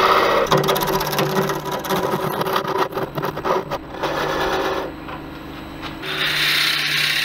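Laguna 18/36 wood lathe running with a steady hum while a hand-held turning tool cuts into the end of a spinning laburnum vase. After a short quieter spell about five seconds in, a drill bit held in the tailstock chuck starts boring into the vase's base with a higher rushing sound.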